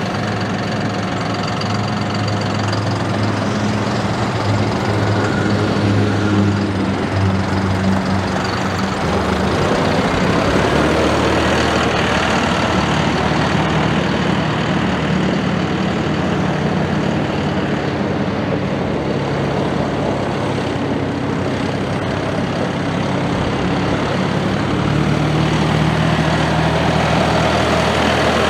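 John Deere 5075E's three-cylinder turbo diesel running steadily as the tractor drives, its engine note shifting about nine seconds in and growing louder near the end as it comes closer.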